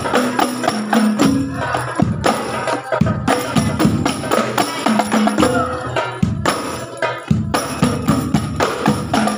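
Hadroh percussion ensemble playing a fast, steady rhythm: hand-struck rebana frame drums and large barrel bass drums beaten together in dense, even strokes.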